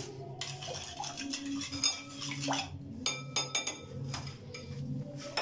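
Metal spoon stirring a thin liquid in a glass bowl, clinking against the glass: a clink about two seconds in, then a quick run of ringing clinks a second later.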